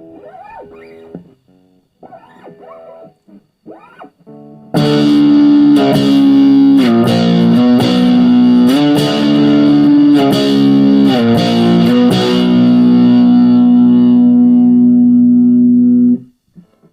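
Electric guitar played through a SubZero SNOWSTORM distortion pedal on its normal setting, with one control turned up to about 2 o'clock. A few quiet picked notes come first. From about five seconds in come loud distorted chords that change several times and ring on, then cut off sharply near the end.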